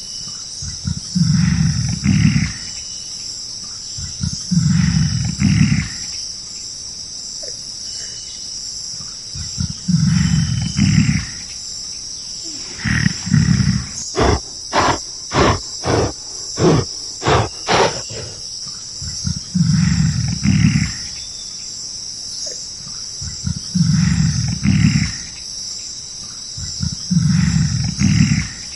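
A large animal's deep, rasping calls, each about a second and a half long and repeating every few seconds. In the middle comes a quick run of about eight short calls, roughly two a second. Steady high insect buzzing runs underneath.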